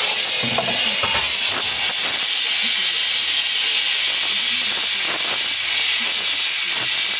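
Gas torch flame hissing steadily while it heats a raised steel helmet blank for further shaping.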